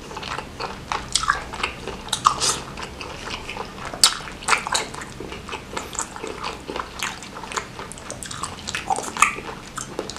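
A person chewing mouthfuls of tender stir-fried baby squid in spicy chili sauce close to the microphone: a dense, irregular string of short clicks and smacks.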